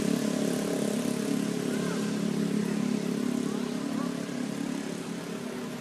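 An engine running steadily at low revs, slowly growing fainter, with a few faint short chirps over it.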